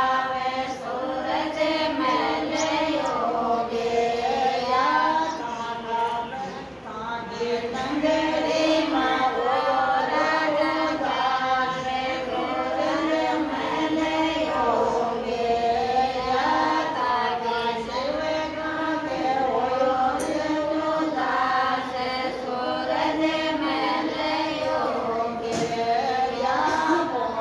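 A group of women singing together, holding long wavering notes in a slow, continuous song, with a brief pause about six seconds in.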